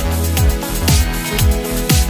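Electronic background music with a steady beat: deep kick drums that drop in pitch, about two a second, over hi-hats and held synth tones.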